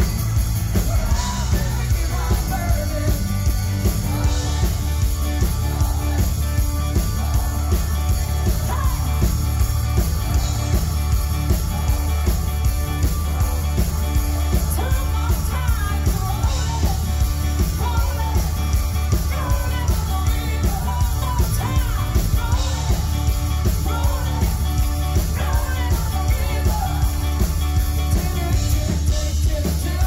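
Live rock band playing, with a woman singing lead into a microphone over acoustic guitar and electric bass and a steady beat.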